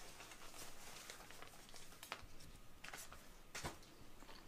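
Faint rustling of a thin packing-foam sheet being laid and smoothed by hand, with a few short crackles as it is pressed down.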